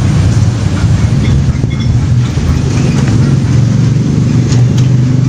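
A steady, loud, low engine hum, like a motor running close by.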